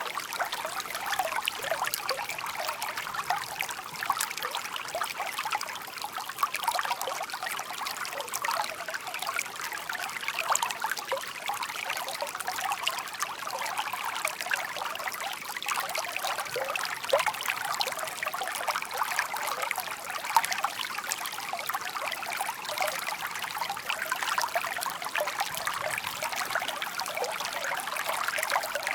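A shallow stream murmuring and trickling steadily over stones, with a continuous bright babble of small splashes.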